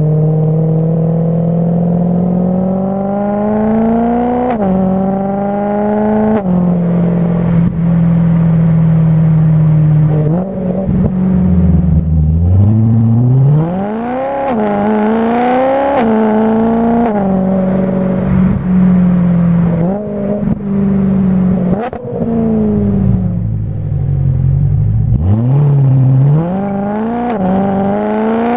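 BMW M3 E92's V8 through a Meisterschaft aftermarket exhaust, driven hard through the gears: the engine note climbs steadily in each gear and drops sharply at each upshift, several times over. Around the middle and again near the end the revs fall low, then the engine pulls hard and climbs steeply again.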